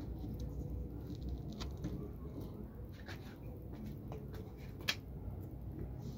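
Handling noise: soft scattered taps and rustles over a low rumble, with one sharper click about five seconds in.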